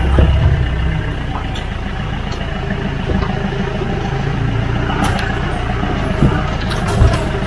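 Vehicle engine running while driving along a rough dirt track, a steady low rumble with a couple of thumps near the end.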